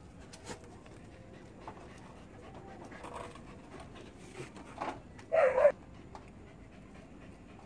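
Husky panting and sniffing, with a short loud sound about five and a half seconds in.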